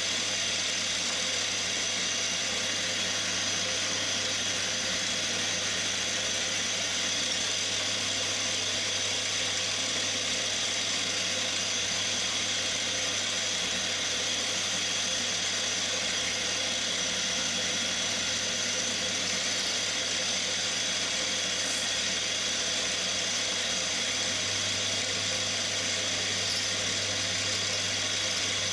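Cormak ZX 7045 milling machine running steadily while its end mill cuts a slot in an aluminium bar clamped in the vise. Its motor hums, with a steady high whine over it.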